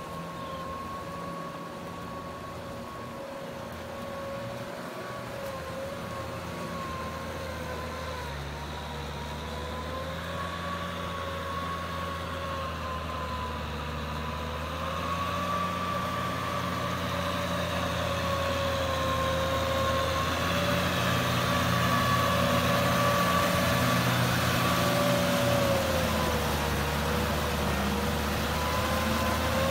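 Kubota M6040SU tractor's diesel engine running under load in a flooded paddy, growing steadily louder as it draws near, with a steady, slightly wavering whine over the engine's rumble.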